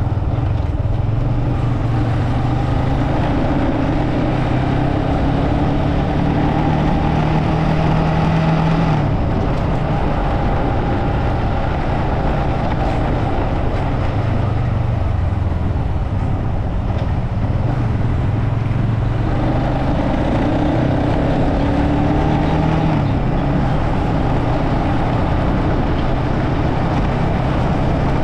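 Motorcycle engine running while riding, its note climbing and then dropping sharply about nine seconds in, and rising and falling again later.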